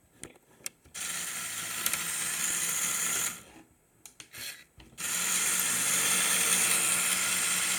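Lego Technic large electric motors whirring as they drive the model's plastic gear drivetrain in all-wheel-drive mode. The sound comes in two runs: one of about two seconds starting a second in, and a second starting about five seconds in.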